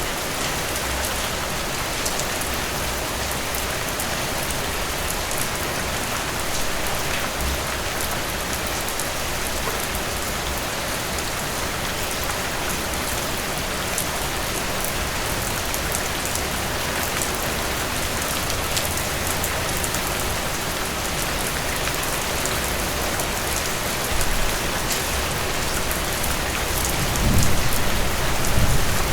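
Steady rain falling: an even hiss with a fine patter of drops. A low rumble swells near the end.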